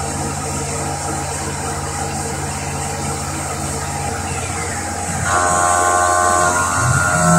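CNC vertical milling machine running: a steady machine hum from the spindle and axis drives. A little after four seconds in a pitch falls, then about five seconds in a louder whine of several steady tones sets in, and near the end a low tone glides up and holds.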